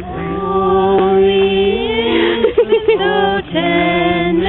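Music with singing: long held vocal notes, some with vibrato, over a steady low note.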